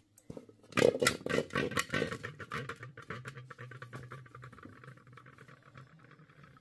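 Dense crackling and sizzling from a smoking cooking fire or grill. It starts sharply about a second in and slowly dies down.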